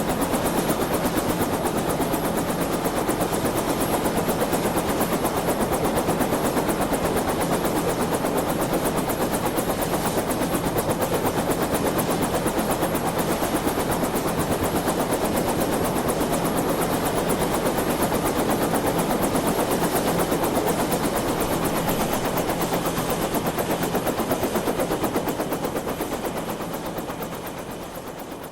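Helicopter in flight, its rotor blades chopping in a fast, steady beat. It fades away over the last few seconds.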